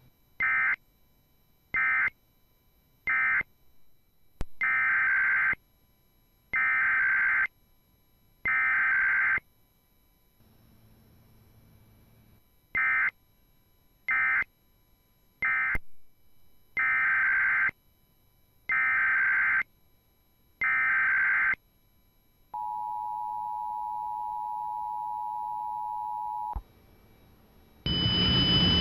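Emergency Alert System SAME data bursts, the screeching digital tones, in sets of three. Three short bursts and then three longer bursts play, and the pattern repeats. The EAS two-tone attention signal follows, a steady dual tone lasting about four seconds. A louder, harsher buzzing tone starts near the end.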